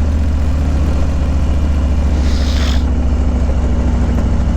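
Harley-Davidson Low Rider S's Milwaukee-Eight 114 V-twin running at a steady pace under way, with a brief hiss about halfway through.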